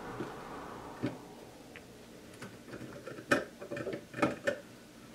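Sharp clicks and taps of a hand tool and wiring being worked inside a tube amp chassis, scattered and irregular, the loudest about three and four seconds in.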